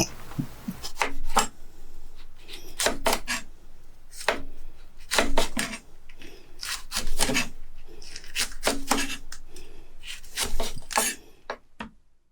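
Kitchen knife slicing chicken breast on a wooden cutting board: a series of irregular sharp knocks with scraping between them, cutting off abruptly near the end.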